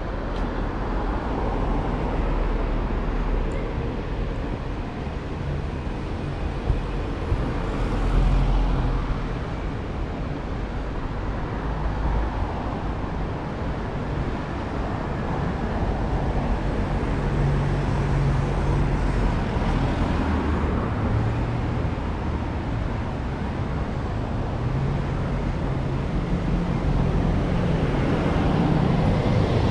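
Road traffic on a busy city street: cars and other motor vehicles passing close by, with a steady rush of tyre noise and low engine hum. It grows louder near the end as a vehicle passes close.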